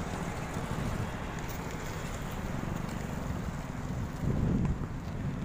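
Road traffic noise with wind rumbling on the microphone, swelling briefly a little past four seconds in.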